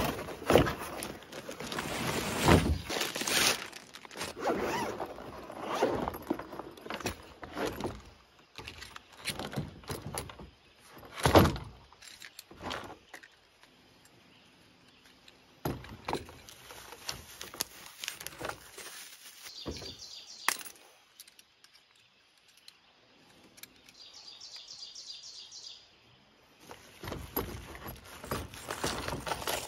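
Unboxing handling sounds: a cardboard box being opened, with scraping and rustling, then irregular knocks and clicks as a telescopic fishing rod and reel are taken out of a hard carrying case. Near the end comes the crinkling of plastic wrapping.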